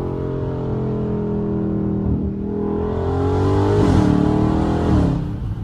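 Dodge Charger Scat Pack's 392 (6.4-litre) HEMI V8, fitted with a JLT intake, accelerating hard: the engine note climbs, drops at an upshift about two seconds in, climbs again louder, and drops at another shift near the end.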